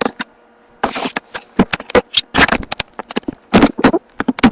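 Irregular clicks, knocks and rubbing of a handheld camera being handled and repositioned, close on its microphone, starting about a second in.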